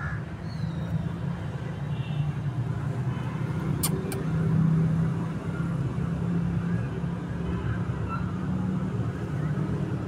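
Steady rumble of road traffic, a car engine swelling louder around halfway as it passes. Two short high clicks about four seconds in.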